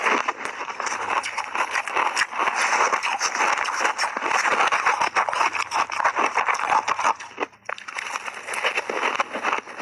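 Close-miked chewing of a mouthful of crunchy shaved ice: a dense, rapid run of crunches that eases briefly about seven and a half seconds in, then resumes.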